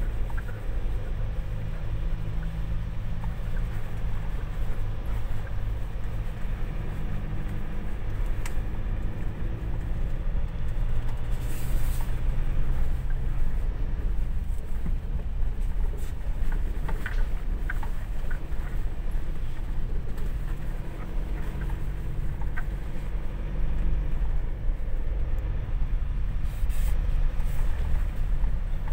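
Ford Ranger FX4 Max pickup's diesel engine running steadily as it drives a rough dirt track, with tyre and road noise and a few short knocks and rattles from bumps.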